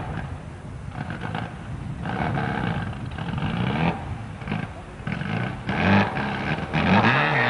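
Rally car engine revving hard, its pitch climbing and dropping several times as it works through the gears, getting louder near the end.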